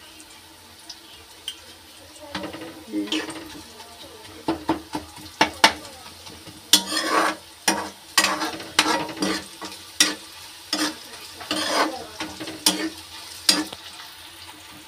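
Metal spatula scraping and stirring sliced onions and cashews frying in oil in a metal kadhai, over a steady sizzle. The onions are being browned. Quick, irregular scraping strokes start about two seconds in.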